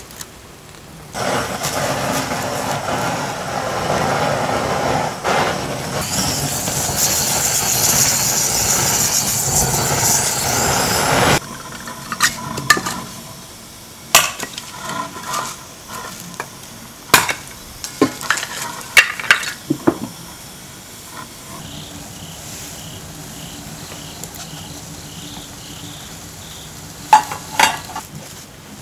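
Food sizzling loudly on a hot camping stove for about ten seconds, stopping abruptly, then a series of sharp clinks and knocks of utensils against pots and pans over a quieter sizzle.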